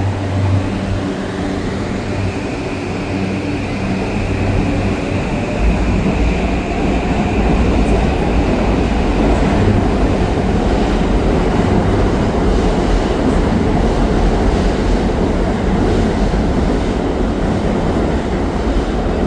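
Toei 5500-series electric train pulling away and gathering speed. A motor whine climbs slightly over the first few seconds, then the rumble of wheels and running gear grows louder about five seconds in and stays steady.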